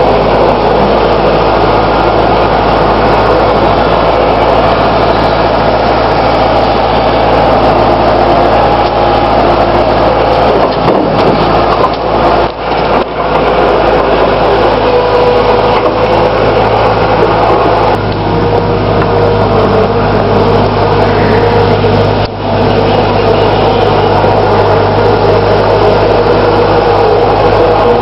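New Holland skid steer's engine running loud and steady, with a few brief dips near the middle and a change in its note about two-thirds of the way through.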